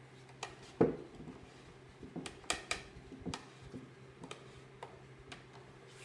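Sharp wooden knocks and clicks as a 1-inch wooden dowel is handled and worked into a drilled hole in a pine board, the loudest about a second in and a quick cluster a couple of seconds later, over a faint steady hum.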